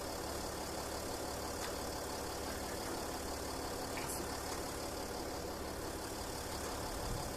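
A vehicle engine idling steadily, an even low hum.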